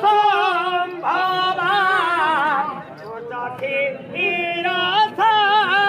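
A man sings a Karma folk song in a high voice, with wavering, drawn-out notes and a short break about halfway through.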